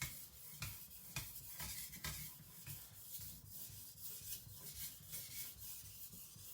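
Carbon-steel Chinese cleaver blade scraping back and forth on a wet Naniwa Aotoshi water stone, about two strokes a second, as the flat just behind the edge is polished.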